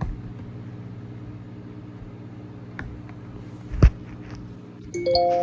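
A steady low hum and a single thump of handling, then guitar strings plucked near the end, several notes ringing and slowly fading.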